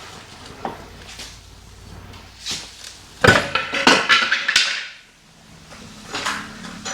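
Metal clanking and rattling as the BMW E46 rear subframe is worked loose and lowered. A few light knocks come first, then a loud cluster of clanks about three seconds in that lasts over a second, and one more knock near the end.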